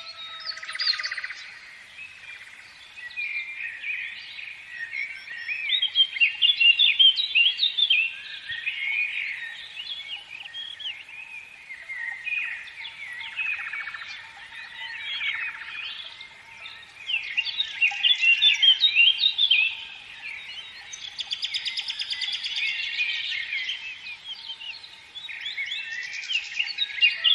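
Chorus of many songbirds: dense, overlapping chirps and whistled phrases, broken now and then by bursts of rapid trilling.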